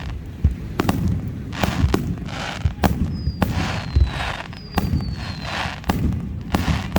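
Fireworks at close range: a rapid series of sharp bangs from shells bursting, with crackling hiss trailing several of them. Two high whistles fall in pitch around the middle.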